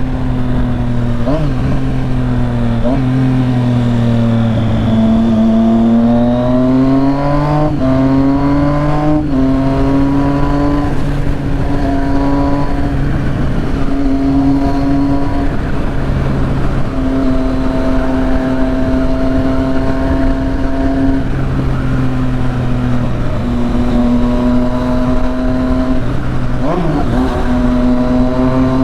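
Triumph Street Triple 675's inline-three engine with a full aftermarket exhaust, under way on the road. Its pitch climbs steadily for a few seconds, then holds at a steady cruising note, broken by short dips and re-steps as the gears change.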